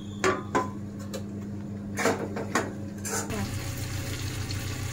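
A cooking spoon knocks against the pan about five times as potato pieces are stirred into a tomato curry. Then, a little over three seconds in, a steady hiss of the curry simmering comes in.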